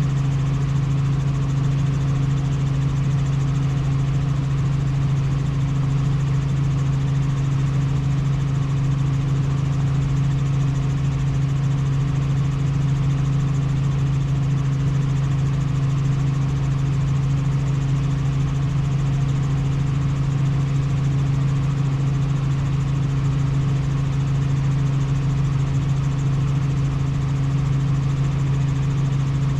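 Tour helicopter in steady cruising flight: a constant loud drone of engine and rotors with a strong low hum that does not change.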